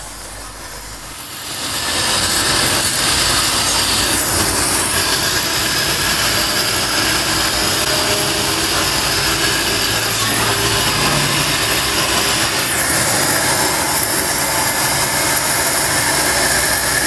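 Pressure washer starting up about two seconds in, then running steadily as its high-pressure water jet blasts against the car's radiator, washing out packed-in dirt.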